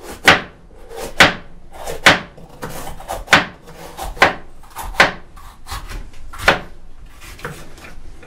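Kitchen knife chopping on a wooden cutting board, cutting up a bell pepper: sharp single knocks about once a second, some louder than others, with quieter scraping between them.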